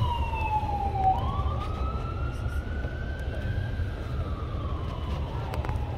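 Emergency vehicle siren in a slow wail: its pitch falls, then climbs for about two seconds and slowly falls again, over a steady low rumble of traffic.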